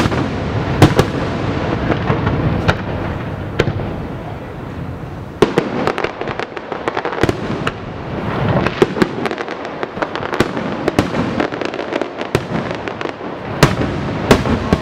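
Aerial fireworks display: shells bursting in a run of sharp bangs and crackles over a continuous rumble, with a dense flurry of cracks midway.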